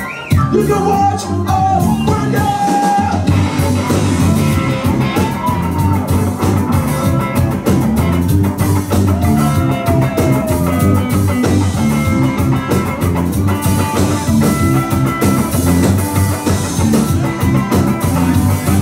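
A ska band playing live, with drums, bass, electric guitar and keyboard carrying the rhythm and a singing voice over it.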